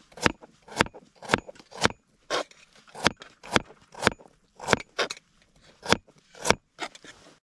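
Kitchen knife slicing a raw carrot into rounds on a plastic cutting board: a steady run of crisp crunching cuts, each ending in a tap of the blade on the board, about two a second.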